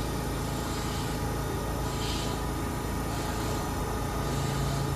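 Keihan 3000-series electric train standing at the platform, its onboard equipment humming steadily under a constant hiss; a low hum grows louder about four seconds in.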